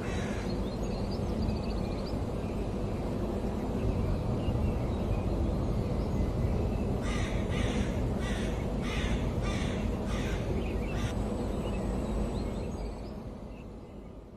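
Steady low outdoor rumble, with a bird calling six times in quick, even succession a little past the middle; the sound fades away near the end.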